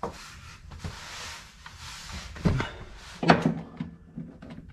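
Tools being handled and positioned under a car: a few sharp clicks and knocks, the loudest two about two and a half and three and a quarter seconds in, over a soft rustling hiss in the first couple of seconds.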